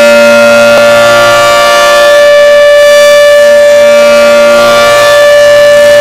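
Civil defense siren sounding one loud, steady, held tone, with a lower tone coming and going underneath it.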